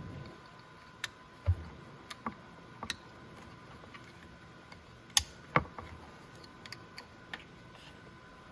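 Scattered sharp clicks and light knocks of plastic wiring connectors being handled and pushed together, about eight of them, the loudest two a little past the middle, over a faint steady hum.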